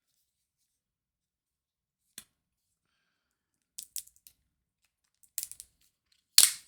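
Scattered sharp plastic clicks and scrapes of a smartphone being handled and pressed into a tight-fitting case, a few single clicks at first and a louder scrape and snap near the end.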